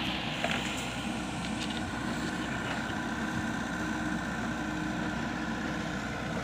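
Komatsu PC78 mini excavator's diesel engine running steadily, with a few light clicks over it.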